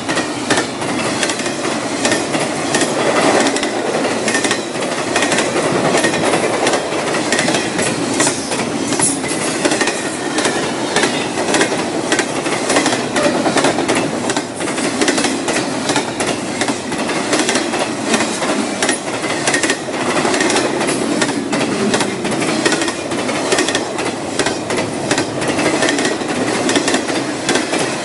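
Double-stack intermodal freight train's well cars rolling past, a steady rumble with frequent irregular wheel clicks and clacks.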